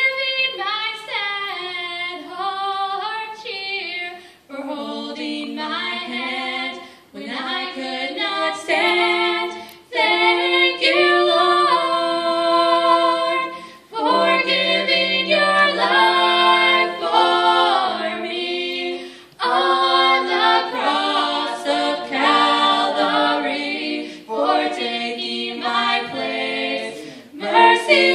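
A vocal trio of two women and a man singing a gospel song in harmony into microphones, in phrases of a few seconds with short breaks between.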